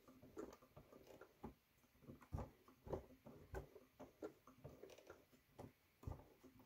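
Sewing machine advanced slowly by hand at the handwheel to stitch across a zipper's teeth: faint, irregular soft clicks and knocks from the needle mechanism and presser foot.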